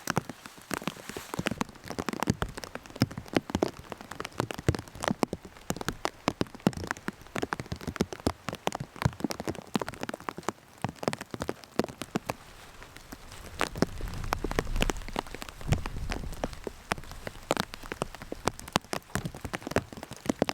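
Rain falling, with large drops striking close by in irregular sharp ticks. A low rumble swells for about two seconds past the middle.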